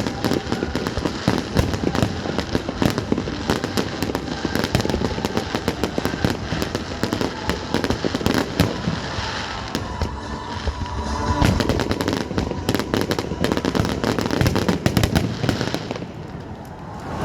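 Fireworks going off in a dense barrage of rapid bangs and crackles. The barrage thins briefly about ten seconds in, then builds again before dying down near the end.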